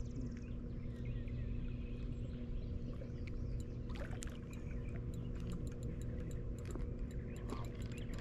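Outdoor riverside ambience: a steady low rumble of moving air and water with a faint steady hum. Scattered small high ticks and chirps come in from about three seconds in.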